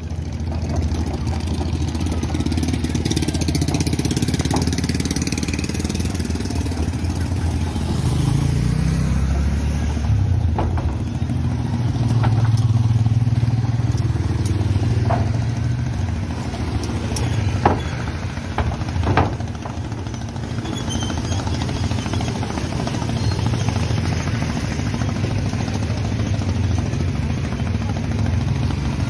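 Motorcycle and car engines running as vehicles drive off a river ferry: a steady low engine drone that swells about ten seconds in, with a couple of sharp knocks later on.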